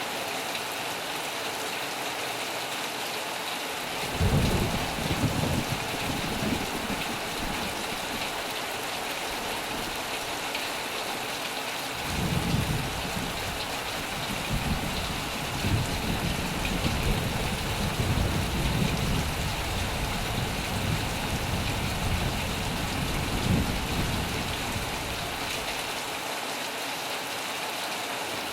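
Heavy rain drumming steadily on a metal roof. Thunder rumbles about four seconds in for a few seconds, then rolls on longer from about twelve seconds in, fading out shortly before the end.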